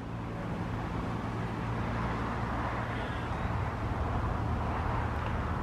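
Steady low hum of distant road traffic.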